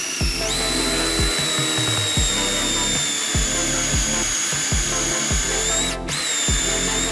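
Electric drill running with a steady high whine that climbs in pitch about half a second in, stops for a moment about six seconds in, then starts again. Electronic music with a heavy, regular beat plays over it.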